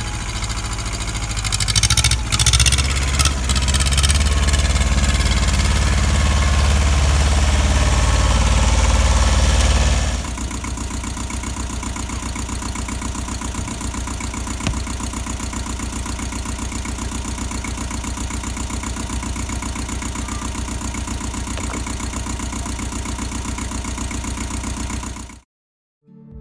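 An engine running hard, with a few sharp knocks about two to three seconds in, then dropping to a steadier idle about ten seconds in. The sound cuts off abruptly shortly before the end.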